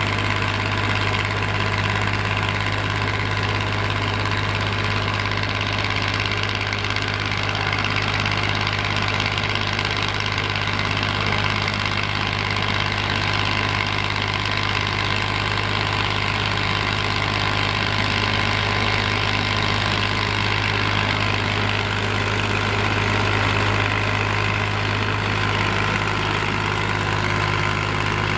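A Komatsu PC210 excavator and a star screener running steadily together: a constant low drone that keeps the same pace throughout.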